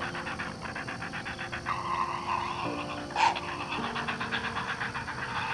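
Young great blue herons in the nest giving their rapid, rattling begging calls, with one louder squawk about three seconds in.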